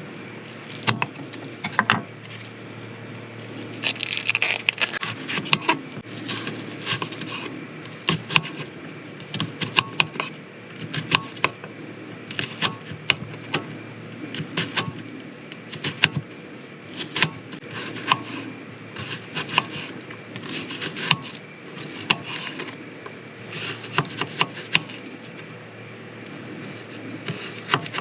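Kitchen knife chopping an onion on a cutting board: irregular sharp knocks of the blade on the board, often several in quick succession.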